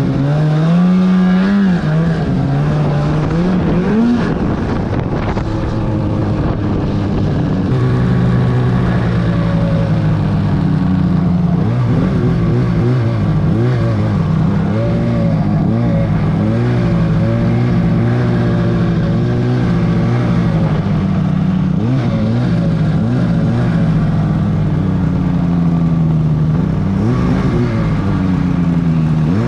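2008 Arctic Cat F1000 Sno Pro snowmobile's two-stroke twin running under way, its pitch rising and falling with the throttle. The swings are large in the first few seconds, then it settles to a steadier run with small wavers and a few brief dips.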